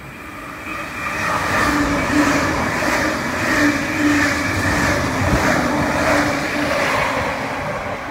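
Sydney Trains double-deck electric train running through the station: a steady motor hum with the wheels clicking over rail joints at an even rhythm, about every two-thirds of a second, swelling about a second in and easing off near the end as it moves away.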